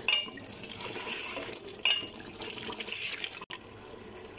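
Mutton curry sizzling as it is fried in a pressure cooker and stirred with a wooden spoon, the spoon scraping the pot twice. The sound breaks off about three and a half seconds in and a quieter hiss follows.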